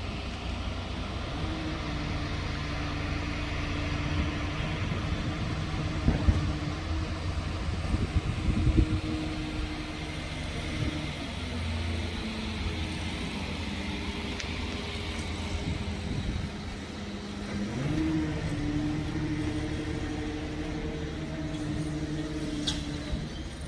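Narrow-gauge Hokusei Line electric train moving slowly, a low rumble under a steady motor hum. The hum shifts pitch several times and rises near the end, with a few clunks about six and nine seconds in.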